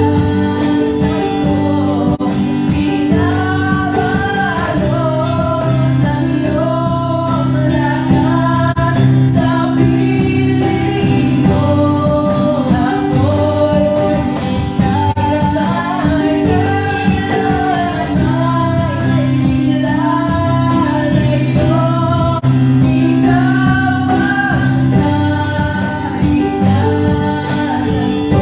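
Gospel worship song: voices singing a melody over a band, with sustained bass and a steady drum beat.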